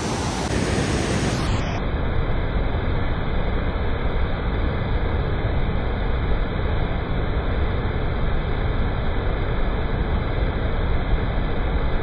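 Steady rushing noise of a waterfall.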